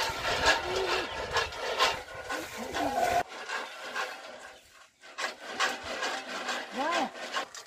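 Maize kernels popping and scraping in a lidded pan over a wood fire as a stick stirs them: a dense run of sharp pops and rubbing that thins out after about three seconds. A few short squeaks rise and fall in pitch, one near the end.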